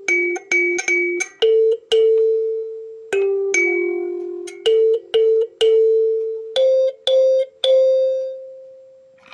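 Kalimba played note by note, each plucked tine ringing with a bright metallic overtone. The last note is left to ring out and fades away.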